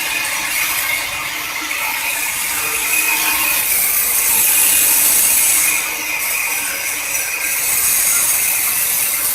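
CNC stone-carving machine cutting stone: a steady, loud grinding hiss with a high whine, swelling and easing as the cutter moves.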